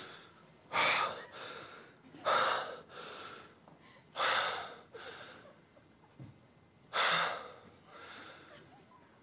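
A person gasping in shock four times, each sharp, loud gasp trailing off into a softer breath.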